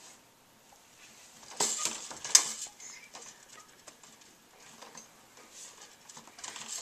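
Plastic toys on a baby's Fisher-Price Jumperoo activity tray clicking and rattling as the baby handles them. A short burst of clatter comes about two seconds in, with one sharp click, followed by a few lighter clicks.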